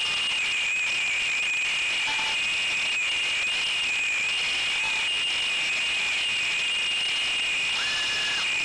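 Brushless motors and propellers of a 3-inch FPV quadcopter, picked up by its onboard camera: a steady high-pitched whine over a hiss, with little change in pitch as it flies.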